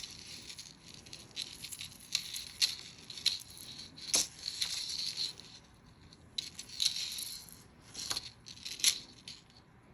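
Irregular rustling and crinkling with light clicks as jewelry is handled and unpacked.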